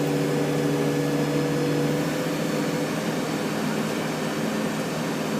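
A backhoe's diesel engine running steadily, its pitch shifting slightly about halfway through.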